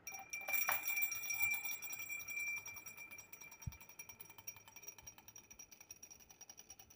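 Bright, music-like jingling with steady high bell-like ringing tones over fast rattling ticks. It starts suddenly and fades slowly after the first few seconds.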